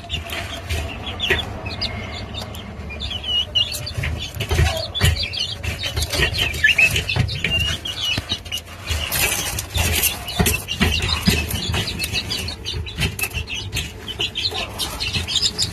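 Serama chickens clucking, with many short, high chirping calls coming one after another. Frequent knocks and rustling sounds run through it.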